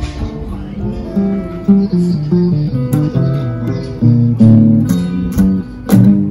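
Two acoustic guitars playing together: a picked melody of single notes, broken by a few loud strummed chords.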